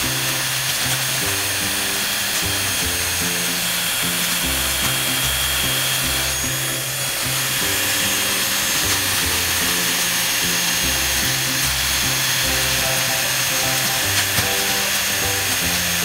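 Black+Decker handheld vacuum running steadily with an even high hiss as it sucks small Lego bricks off carpet, over background music with a bass line.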